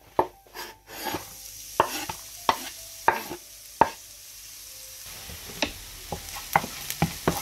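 Diced shallots tipped into hot oil in a non-stick frying pan, sizzling steadily once they are in. A spoon stirs them, scraping and knocking against the pan at irregular intervals about once every half-second to second.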